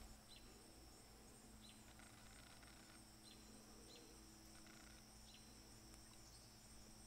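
Near silence: faint outdoor ambience with a steady high insect-like drone and a short faint chirp, falling at its end, repeating about every second or so.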